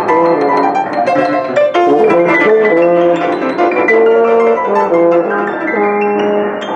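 Instrumental music: a piano-like keyboard playing a quick melody of separate notes.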